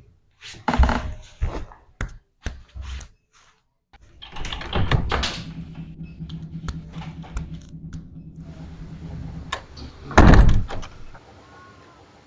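A series of sharp knocks and thuds, then a rustling stretch over a steady low hum, ending in one loud thump about ten seconds in.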